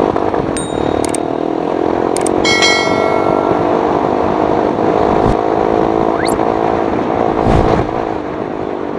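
Motorcycle with an Akrapovic aftermarket exhaust running steadily on the move, with a few clicks and a short ringing ding about two and a half seconds in.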